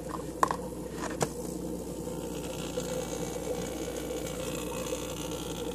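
Steady hum of a small motor, with two faint clicks about half a second and just over a second in.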